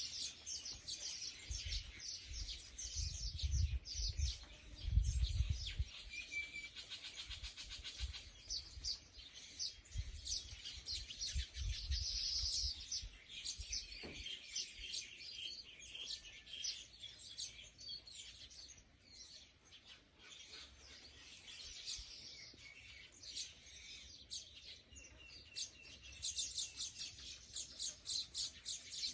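Small birds chirping and twittering in quick, repeated short notes, with a low rumble during the first few seconds.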